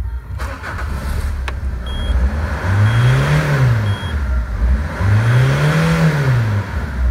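Citroen Berlingo's 2.0 HDi DW10TD four-cylinder turbodiesel idling, then revved up and let back down twice, each rev lasting about a second and a half. Three short high beeps come about a second apart between the revs.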